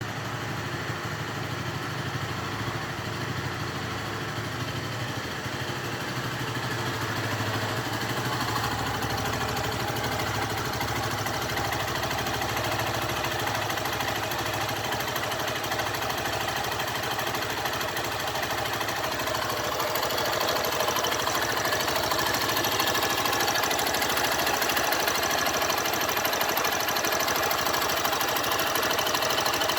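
Honda CG 150 Fan fuel-injected motorcycle's single-cylinder engine running steadily near idle with an engine noise whose cause the owner does not know. It gets a little louder in two steps partway through.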